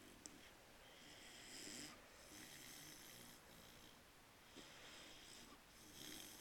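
Newfoundland puppy snoring faintly in its sleep, a slow rhythm of breaths about every second and a half.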